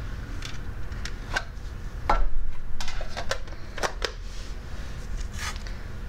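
Small objects clicking and knocking against a metal tin as they are handled and put away, with the tin being closed and stiff sandpaper letter cards moved on a table: a loose series of light clicks and knocks, the loudest about two seconds in.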